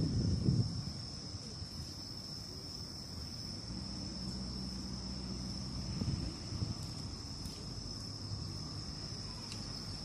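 Crickets chirring in a steady, high-pitched trill, with a low rumble underneath that is strongest in the first second and swells again about six seconds in, and a few faint clicks near the end.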